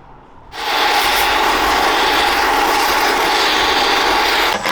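A power tool runs loud and steady for about four seconds, starting about half a second in and cutting out briefly near the end, while the last nut is worked off a steel armour plate.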